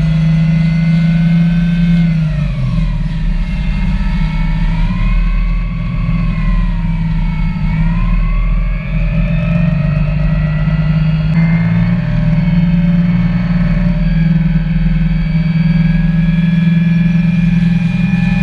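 Outboard engine of a Parker 750 Baltic RIB running at speed: a loud, steady drone with a higher note that rises and falls, over the rush of wind and water.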